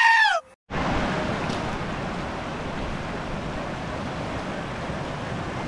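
A sheep's loud, scream-like bleat ends abruptly within the first half second. After a brief gap comes the steady rush of a fast mountain stream running over rocks.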